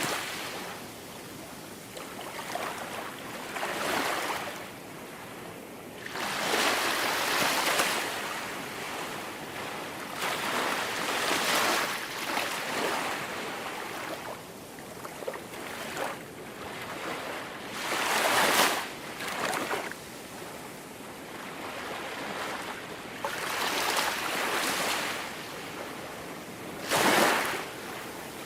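Small waves breaking and washing up onto a sandy beach, each wave a rising and fading hiss every few seconds over a steady background wash.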